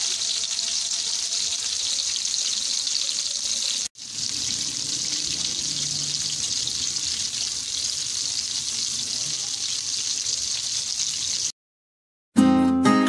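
Kafta kababs shallow-frying in hot oil in a pan: a steady sizzle, broken briefly about four seconds in, that cuts off near the end.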